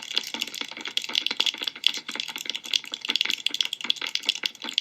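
Recorded rain-falling sound effect: a dense, irregular patter of small drop clicks.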